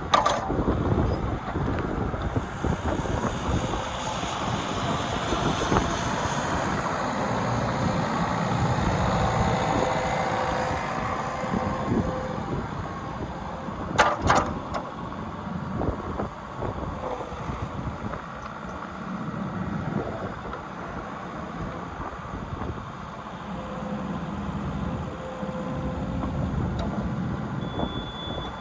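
JCB 8085 ZTS excavator running, its engine and hydraulics working with a faint whine that comes and goes, and one sharp clank about 14 seconds in.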